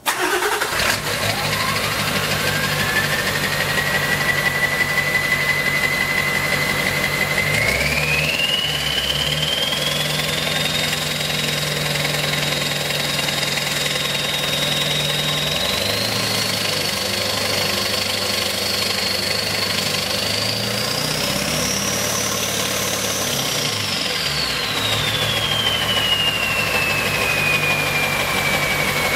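Ford 7.3L Power Stroke V8 turbo diesel starting and running through a straight-pipe exhaust, with engine speed raised in steps. The 38R dual ball bearing turbo's whistle spools up in steps, climbing to its highest pitch about three-quarters of the way through, then winding down as the revs drop.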